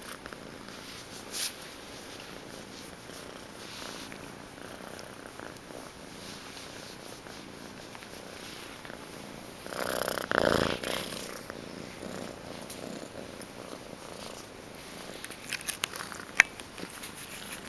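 Young gray tabby domestic shorthair kitten purring steadily while being held and petted. A louder burst of noise comes about ten seconds in, and a few sharp clicks near the end.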